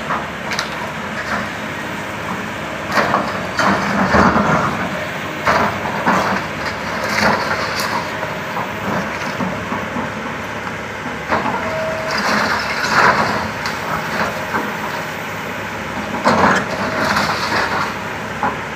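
Kobelco SK200 hydraulic excavator running steadily while it breaks down a house's masonry walls, with repeated sudden crashes and clatter of falling wall and rubble over the engine noise.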